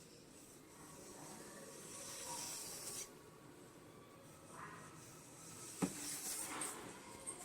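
Ghee sizzling with a faint hiss under a stuffed chapati cooking on a hot griddle (tawa), with a sharp tap about six seconds in.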